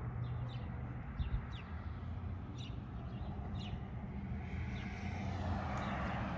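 Small birds chirping in short, scattered calls over a steady low mechanical hum. A rushing noise like a passing vehicle builds toward the end.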